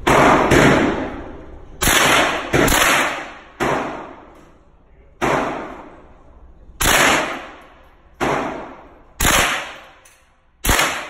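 Gunshots on an indoor shooting range, about ten, irregularly spaced, some only half a second apart, each dying away in a long echo off the range walls.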